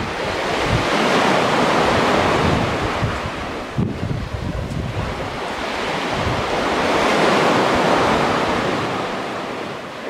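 Black Sea surf breaking on a pebble-and-sand shore, two waves swelling in and washing back, with wind buffeting the microphone.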